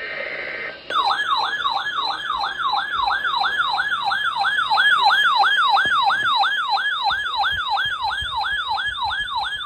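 Electronic warning siren in a fast yelp: a brief hiss, then about a second in the siren starts, its pitch sweeping quickly and evenly up and down nearly three times a second.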